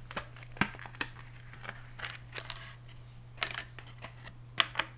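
Small clear plastic packaging being handled: crinkling and scattered sharp clicks, the sharpest twice near the end, over a steady low hum.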